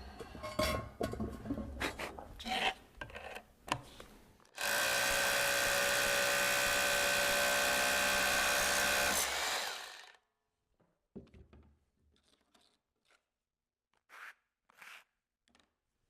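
Corded hammer drill boring an anchor hole into a limestone column top: scattered knocks of handling, then the drill runs steadily for about five seconds and winds down. A few faint clicks follow.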